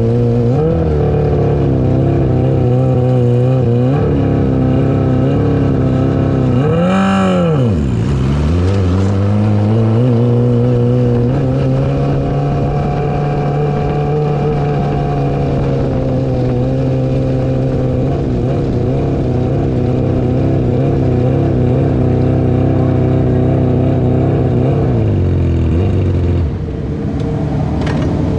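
On-board sound of a micro sprint car's engine running at a steady pitch. About seven seconds in it revs up sharply and drops back, and its pitch falls away again near the end.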